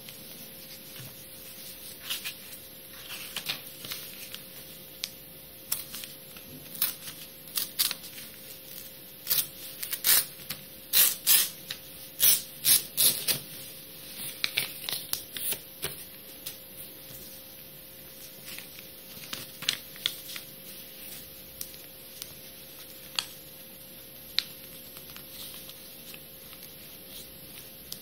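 A sheet of paper being folded and creased by hand for origami: irregular crisp crackles and taps, with a dense, louder run of paper rustling about a third of the way in that then thins out again.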